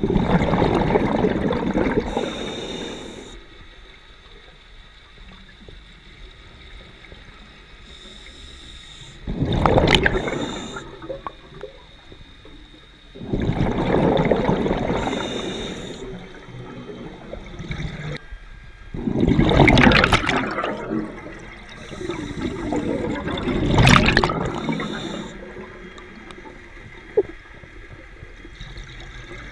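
Scuba regulator exhaust bubbles from a diver breathing underwater: five bubbling rushes of exhaled air a few seconds apart, with quieter stretches between.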